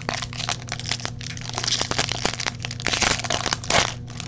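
Foil wrapper of a trading-card pack crinkling and crackling in the hands, a rapid run of small crackles that is busiest about three to four seconds in.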